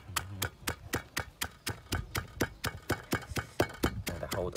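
Wooden pestle pounding salt and red chili in a stone mortar, a steady rhythm of dull knocks at about four strikes a second.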